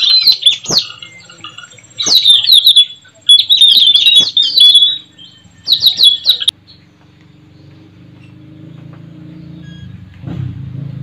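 Tanau (puling) parrots giving runs of shrill, rapid chattering calls, four runs in the first six seconds or so. The calls stop abruptly about six and a half seconds in, leaving a low rumble that slowly grows louder.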